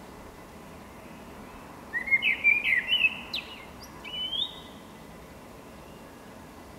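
Male common blackbird singing one song phrase about two seconds in: a quick run of warbled notes with a few sharp, squeaky high notes among them, then a final rising note, about two and a half seconds in all.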